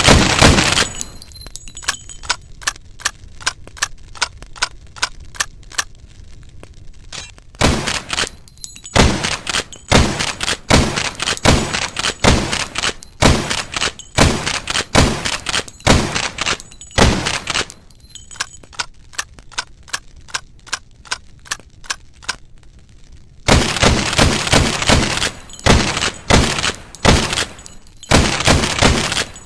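Saw cutting through a lever-action rifle's metal barrel: repeated back-and-forth strokes, about two a second, going in loud runs with quieter, lighter strokes in between.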